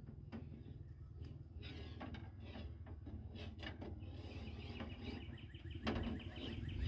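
Birds chirping over a low outdoor rumble, with a rapid trill from about four seconds in. Light taps and a sharper knock about six seconds in as a pane of truck door window glass is handled and worked into the door.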